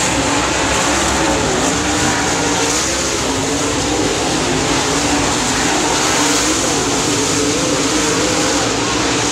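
Dirt late model race cars running laps on a dirt oval. Their V8 engines make a loud, steady sound, with engine notes rising and falling as they go around.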